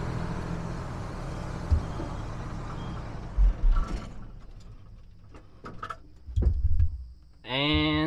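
Engine of a self-propelled automatic bale wagon, heard from inside its cab, running and fading, then cutting out abruptly about four seconds in, followed by a few knocks. The engine is stalling from a fault that is not yet fixed, even after the fuel system was flushed and primed.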